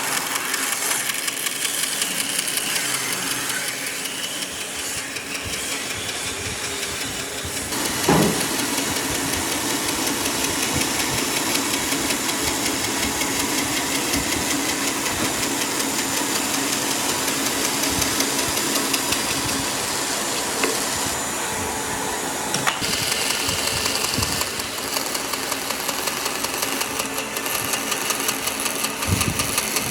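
Power tool running steadily on wood with a fast buzz, with a knock about eight seconds in.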